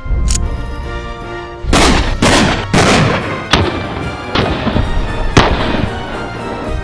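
Pump-action shotgun fired several times, sharp blasts over background music.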